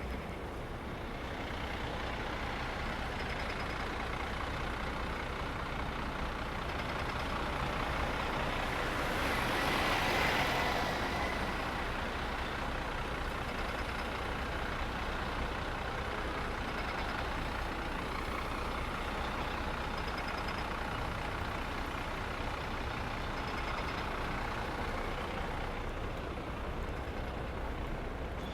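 City street traffic: a steady rumble of engines and tyres, swelling as a vehicle passes close about ten seconds in.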